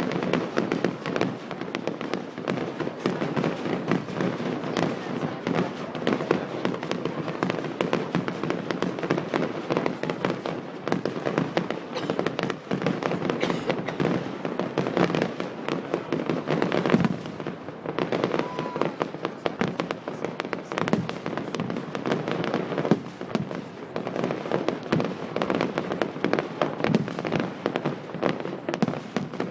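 Fireworks display: a dense, unbroken run of bangs and crackling from bursting shells.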